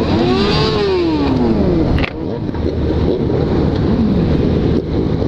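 Motorcycle engines running on the highway, their pitch rising and falling with throttle, over a steady rushing wind noise. The sound dips briefly about two seconds in.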